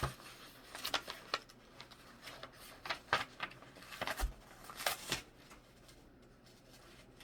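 Paper pages of a picture book being handled and turned: a string of short rustles and taps that stops about five seconds in.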